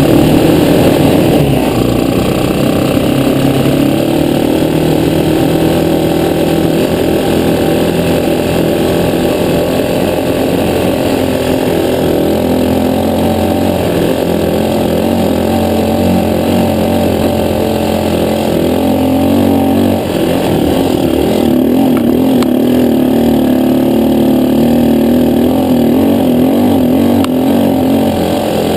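Engine of a Jaguar ATV quad running under way, heard from the rider's seat, its note wavering up and down with the throttle.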